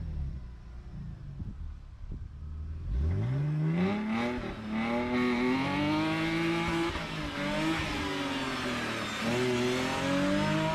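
BMW E46's swapped-in M54B25 2.5-litre straight-six idling, then revving sharply about three seconds in and held high while the rear tyres spin on loose dirt and spray grit. The revs dip and climb again a couple of times.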